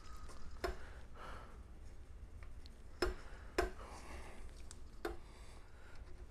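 Brass bugle being handled and set against a steel roller shaft: about four light, sharp metal knocks spread over a few seconds, over a low steady hum.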